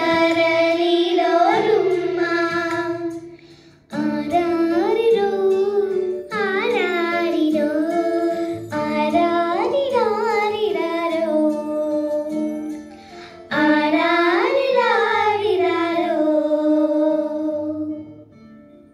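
Young girls singing together into microphones, an ornamented melody with sliding pitch in long phrases over a steady low accompaniment. The last phrase fades out near the end.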